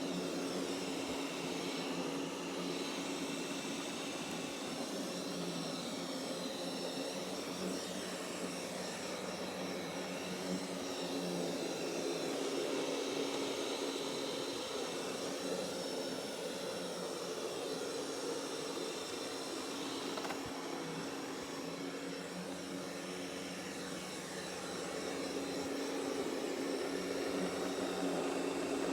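Roborock Qrevo S robot vacuum running while cleaning: a steady whirring rush from its suction fan with a constant low hum.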